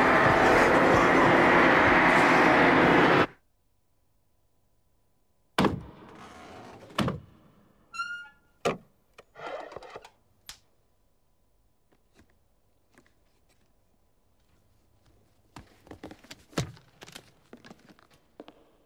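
A loud, dense rushing noise cuts off suddenly about three seconds in. After a pause come a sharp knock and a few clicks, clacks and a short chirp as a green folding prop is handled. Footsteps on a wooden floor follow near the end.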